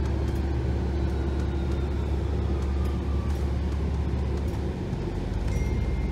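Interior noise of a New Flyer XDE60 diesel-electric hybrid articulated bus (Cummins L9 engine, BAE HybriDrive) running, heard from inside the cabin: a steady low rumble with a faint falling whine. About five seconds in the low engine note changes, and a steady high beep starts.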